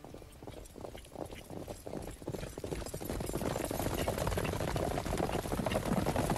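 Horses' hooves galloping on a forest track, a rapid run of hoofbeats that grows louder as the riders approach, loudest in the second half.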